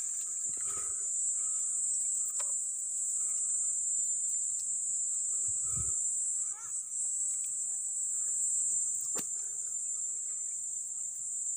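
Steady high-pitched shrilling of insects, with a few sharp clicks over it.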